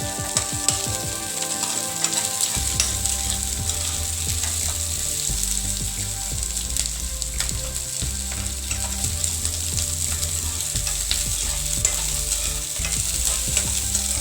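Chopped garlic, capsicum and onion sizzling as they are stir-fried in hot oil in a kadhai over high heat, with a spatula clicking and scraping against the pan.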